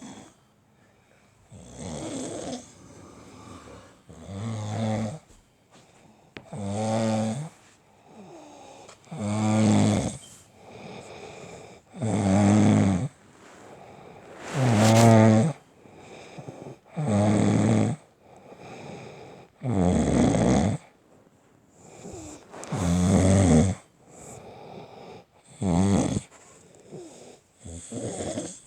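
Snoring: about ten loud, rough snores, one roughly every two and a half seconds, with quieter breaths between them.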